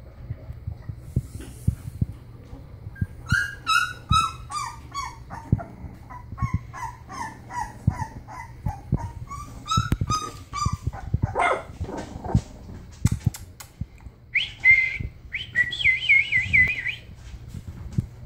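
Three-week-old bulldog puppies whimpering, with a long run of short yelps that each fall in pitch. Near the end come a couple of higher, drawn-out squeals.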